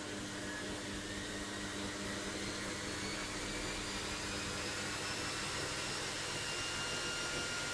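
Logik washing machine on its final spin, the drum speeding up: a steady motor and drum rush with a whine that rises slowly in pitch and grows a little louder.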